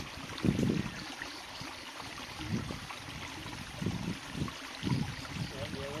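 Small cascade of stream water pouring over a rock into a shallow pool, splashing and gurgling in uneven surges.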